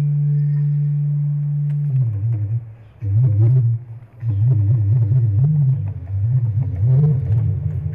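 SABRE electronically augmented bass clarinet playing improvised music: a long, steady low note, then from about two seconds in a low line that wavers and bends up and down, broken by two short gaps.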